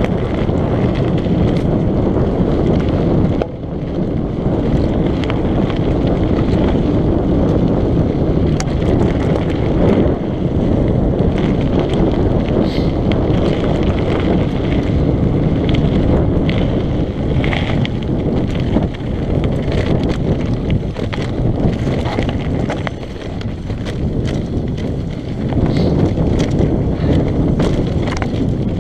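Wind buffeting the microphone of a mountain bike's action camera on a fast singletrack descent. Mountain bike tyres rumble over loose dirt and gravel throughout, with frequent small clicks and rattles from the bike. The rush dips briefly a few seconds in and again about two-thirds of the way through.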